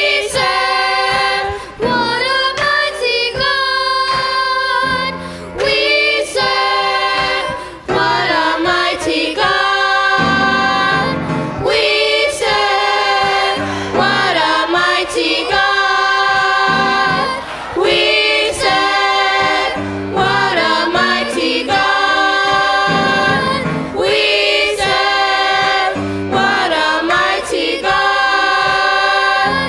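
A choir singing a gospel song, several voices holding long notes together over a low accompaniment that steps from note to note.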